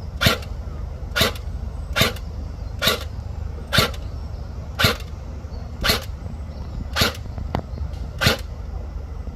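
Airsoft gun firing single shots, nine sharp pops at an even pace of about one a second.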